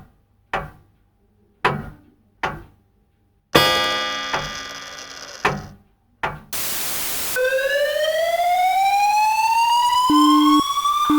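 Simulated emergency alert: a few sharp thumps and a loud ringing crash, then a short burst of static. A siren follows, rising steadily in pitch, and pulsing alarm beeps join it near the end.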